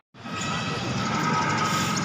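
A split-second dropout at an edit, then the steady background hubbub of an open livestock market: general noise with indistinct distant voices.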